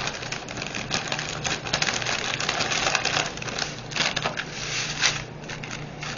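Plastic packaging of a diamond-painting kit being handled, with crinkling and a dense run of small clicks and rattles from the pieces inside.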